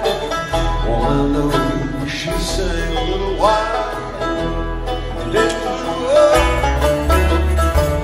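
Live acoustic string band playing an instrumental jam on acoustic guitars, banjo, mandolin and upright bass, with a lead line of sliding, bent notes over a steady bass.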